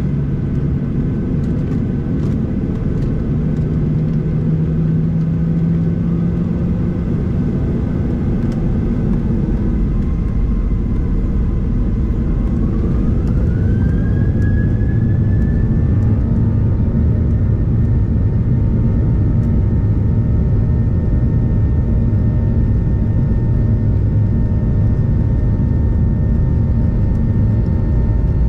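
Boeing 737-800's CFM56-7B jet engines at taxi thrust, heard from inside the cabin as a steady rumble and hiss. About halfway through, an engine whine rises in pitch as thrust is added, then holds steady at the higher note.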